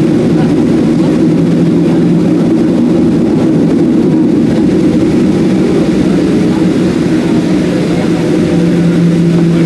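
Steady jet engine noise inside the cabin of a Boeing 737-700 from its CFM56 turbofans, heard from a window seat. It is a loud, even roar with a constant low hum.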